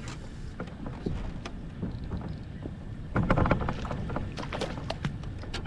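Handling and knocking noises in a small john boat: scattered light clicks and knocks, with a louder rustling, splashy stretch about three seconds in.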